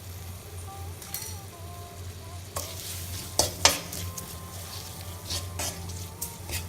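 Spoon stirring an onion-tomato masala frying in a pan, with a light sizzle and several sharp knocks and scrapes of the spoon against the pan, the loudest a pair about three and a half seconds in.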